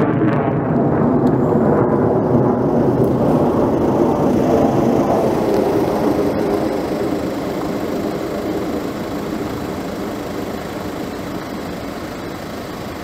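Sounding rocket's motor in flight, heard from the ground as a steady, noisy rumble that slowly fades over the second half.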